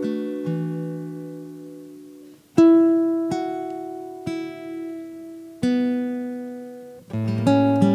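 Solo acoustic guitar in a slow passage: a chord rings and dies away, fresh chords are struck about two and a half and five and a half seconds in and left to ring, and a busier run of notes starts near the end.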